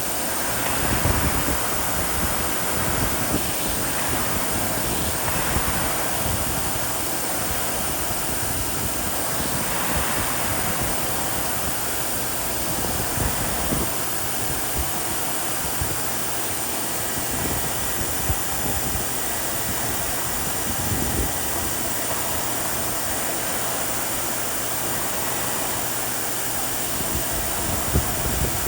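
Vacuum cleaner running steadily on a sidewalk: an even rushing noise under a high, constant motor whine, with a few brief swells.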